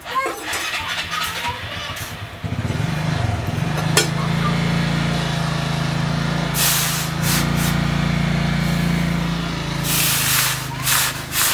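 An electric power tool's motor starting up about two and a half seconds in, rising briefly in pitch and then running with a steady hum. Two stretches of hissy grinding noise come near the middle and near the end, as the work is pressed against it.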